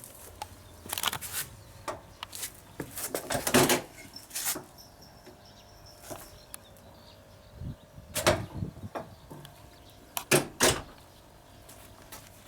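A string of irregular short knocks and clatters, thickest about three to four seconds in and again near eight and ten seconds in.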